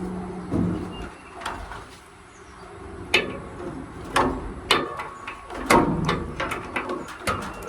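A run of irregular knocks and clanks, some with a short metallic ring, from metal panels and parts of a dryer cabinet being handled during a repair. They come thickest in the second half.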